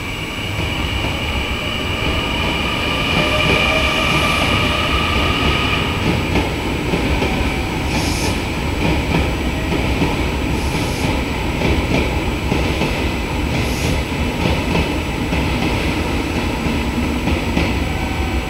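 JR Kyushu 813 series six-car electric train pulling out and picking up speed as it passes. A whine sounds over the rumble for the first few seconds, then the wheels rumble and clatter along the rails, with a few short high hisses.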